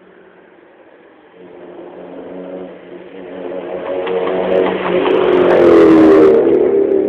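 Motor vehicle engine running, growing steadily louder from about a second and a half in and loudest near six seconds, with a brief rush of noise at its peak.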